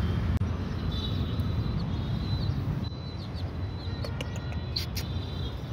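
Small domestic chick peeping in short, high, repeated chirps over a steady low outdoor rumble, with a few sharp clicks near the end.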